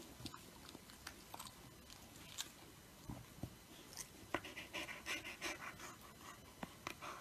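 Samoyed making soft mouth noises while being petted: quiet lip and tongue smacks, with a short run of rapid panting breaths about halfway through.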